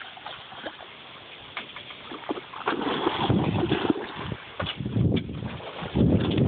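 Rumbling handling noise on the camera microphone, loud from about three seconds in, after a few faint clicks and splashes.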